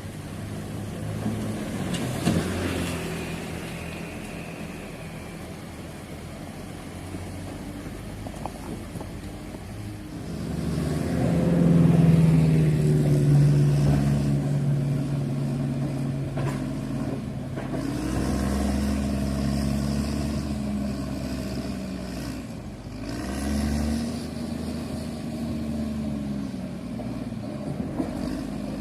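Heavy construction vehicle's engine running, revving up loudly about ten seconds in, then rising and falling in pitch several times.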